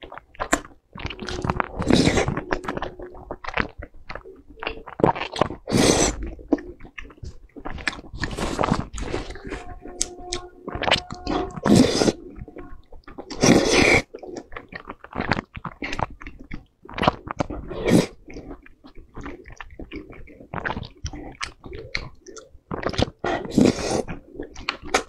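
Close-miked slurping and chewing of wide sweet-potato starch noodles (kuan fen) in sesame-chili sauce, wet mouth sounds coming in irregular bursts.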